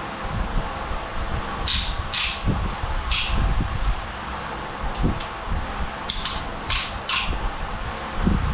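Ratchet on a head bolt socket clicking in short spells while the cylinder head bolts of a VW 1.8T engine are broken loose, with occasional knocks, over a steady fan hum.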